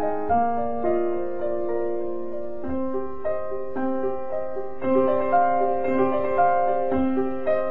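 Slow, gentle piano music: single notes and held chords changing about once a second.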